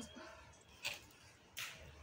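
Two short, faint scratchy strokes of a kitchen knife blade scraping and cutting along the edge of a cardboard box lid and its paper lining.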